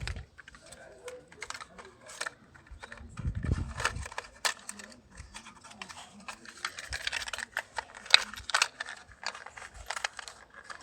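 Hands handling small metal and plastic parts: scattered clicks, light rattles and rustling, with a dull thump about three and a half seconds in and thicker clicking near the end, as new spark plugs are fitted.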